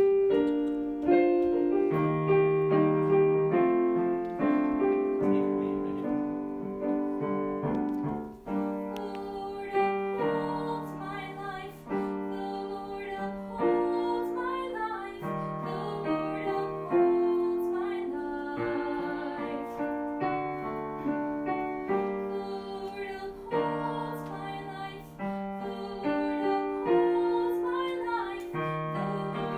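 Choir singing slow, held chords with piano accompaniment.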